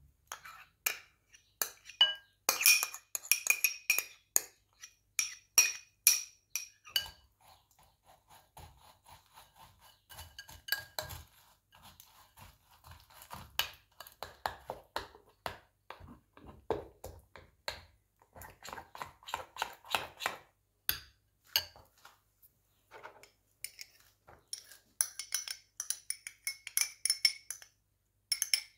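A metal spoon clinking and scraping against a glass bowl as yogurt and wheat starch are stirred together, with quick ringing clinks in the first several seconds and softer taps and scrapes after. Near the end come rapid clinks of a spoon in a small ceramic ramekin.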